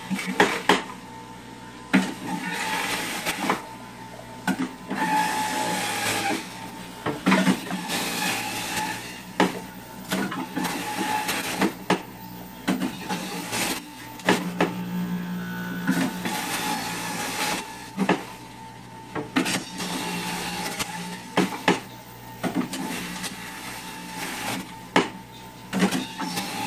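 Jack LaLanne Power Juicer's centrifugal motor running steadily while apple and beet pieces are pushed down the chute. Repeated knocks and grinding bursts, several every few seconds, come as each piece hits the spinning cutter.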